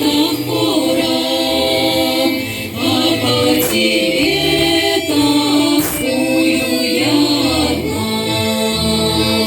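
Choir singing a Russian song in held, sustained notes over a low instrumental accompaniment.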